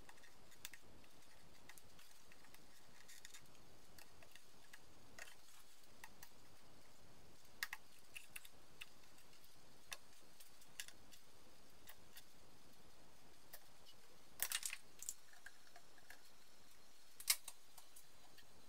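Faint, scattered clicks and taps of push-fit air-line fittings and nylon tubing being handled and fitted together, over a low steady hiss. A few sharper clicks stand out in the second half, the loudest near the end.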